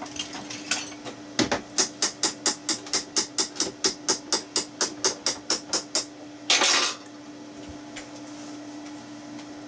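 A stuck lid on a glass jar of pepperoncini being rapped hard and fast, about four knocks a second for several seconds, to loosen it. A short noisy scrape follows, about two-thirds of the way in.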